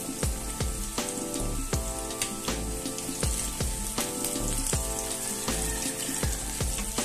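Background music with a steady beat, over the steady sizzle of flour-coated chicken pieces deep-frying in hot oil in a wok.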